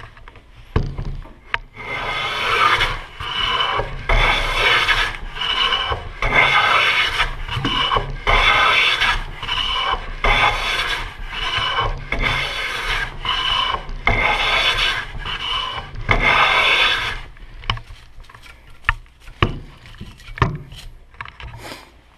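A metal bench plane cutting shavings off the edge of a wooden board: about a dozen long strokes in a steady rhythm. Near the end the strokes stop and a few separate knocks and light scrapes follow.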